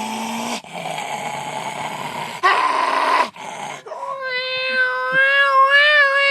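A man making sound effects with his mouth: first a few rough, hissing rasps, then from about four seconds in a high, held whine that wavers slightly and drops in pitch as it ends.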